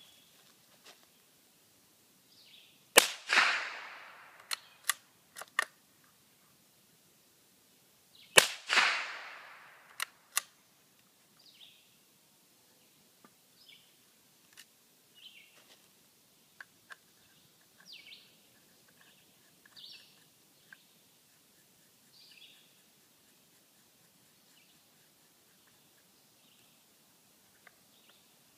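Two shots from a Savage Mark II FV-SR bolt-action .22 rifle about five seconds apart, each trailing a long echo, followed by a few light metallic clicks as the bolt is worked.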